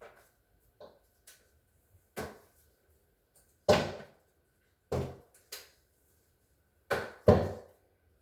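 Irregular knocks and clunks from handling refrigerator parts during the repair, about eight in all, the loudest a little under four seconds in and again around seven seconds in.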